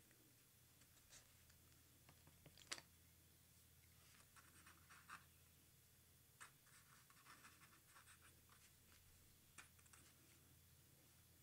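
Pen tip scratching on paper in short quiet strokes, coming in clusters with pauses between them. About two and a half seconds in there is a single sharper tick.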